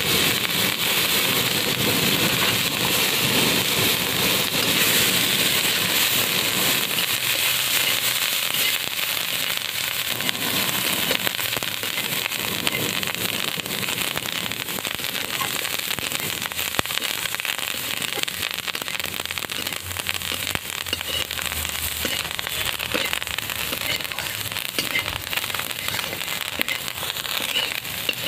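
Neem leaves frying in hot oil in a kadai with small potato pieces: a dense crackling sizzle, strongest in the first several seconds and easing a little after that.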